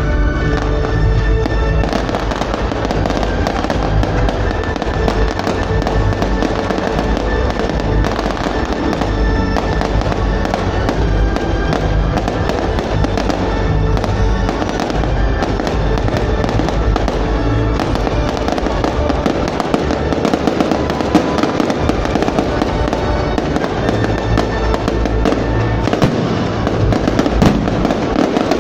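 Fireworks exploding in dense, continuous volleys of bangs and crackles over loud recorded music from the display's soundtrack.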